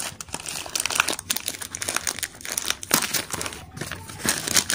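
Plastic packaging of a hotcake mix crinkling and crackling irregularly as it is handled and opened by hand.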